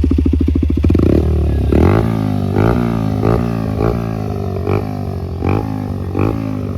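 Single-cylinder motorcycle with a loud aftermarket exhaust revving. It holds a steady high idle for about a second, then gives a string of quick throttle blips, roughly one every 0.7 s, each rising and falling back.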